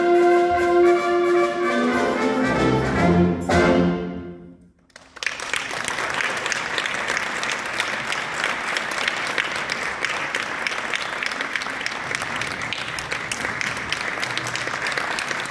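A student concert band's trumpets and other brass play the final held chords and cut off together about four seconds in. After a brief silence, the audience applauds steadily.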